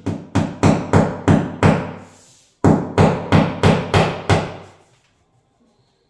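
Hammer driving a nail into a wall: two runs of quick blows, about three a second and six or seven in each, with a short pause between. Each strike rings briefly.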